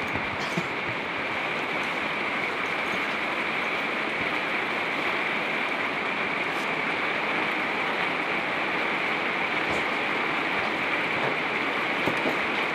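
Heavy rain on a travel trailer's roof, heard from inside: a steady, even hiss.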